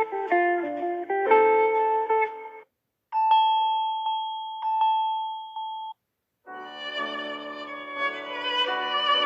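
Samsung Galaxy A32 ringtones played one after another with short silences between. A melodic ringtone ends, then a bell-like tone of a few struck notes rings on one pitch for about three seconds, and in the second half a fuller melodic ringtone begins.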